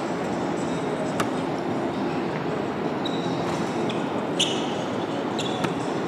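Steady rush of a large drum fan, with a few sharp basketball thuds and short high sneaker squeaks on the hardwood floor.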